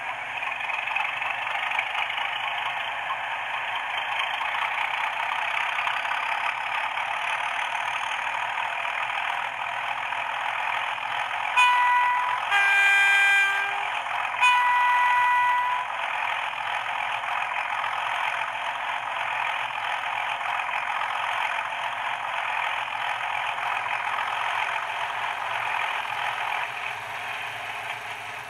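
Simulated Class 31 diesel locomotive sound played by a DCC sound decoder through a model locomotive's small speaker: the engine running steadily, with a two-tone horn sounded about twelve seconds in, high, low, then high again, over about four seconds.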